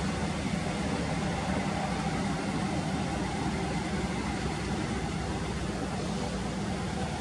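Diesel locomotive engine running steadily, a low even drone with no change in speed.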